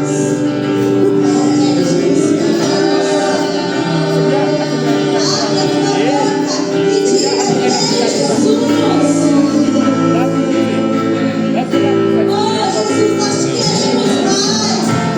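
Church worship music: voices singing over steady sustained chords, with a light jingling shimmer up high.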